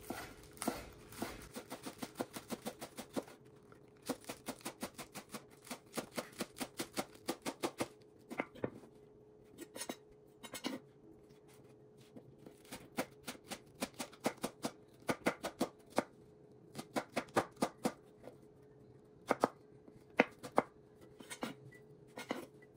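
Chef's knife slicing green onions on a wooden cutting board: quick runs of sharp chops, several a second, broken by short pauses.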